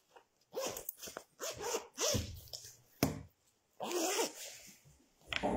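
A dog barking in short yelps, several times, mixed with rustling as the phone is handled and a sharp click about three seconds in.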